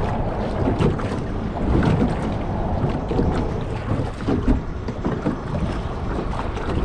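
Wind buffeting the microphone on a fishing boat, an uneven low rumble, with water slapping against the hull and scattered small knocks.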